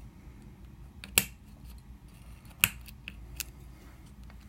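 Metal lock-picking tools working in the pin-tumbler cylinder of a cheap bike lock, making sharp metallic clicks. There are two loud clicks about a second and two and a half seconds in, a fainter one a little later, and light ticking in between.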